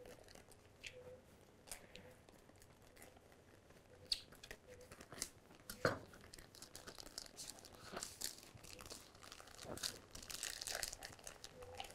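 Plastic sous vide bag crinkling and tearing faintly as it is slit open and peeled back from a cooked salmon patty, with scattered small clicks. The crinkling gets denser near the end.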